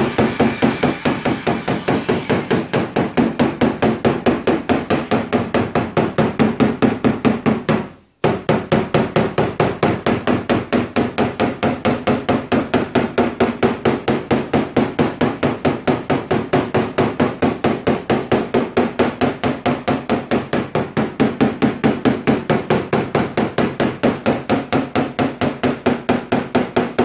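Rapid, even light tapping of a rubber-tipped PDR tool on a Toyota RAV4's steel door panel, about four taps a second, with a brief pause about eight seconds in. The taps are not blows but shake the metal so it spreads out, blending the high spots around the dent.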